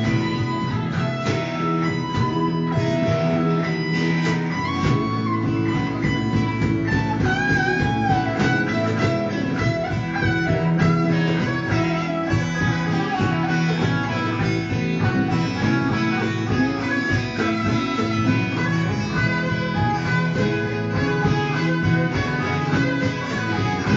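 Live band music led by guitars.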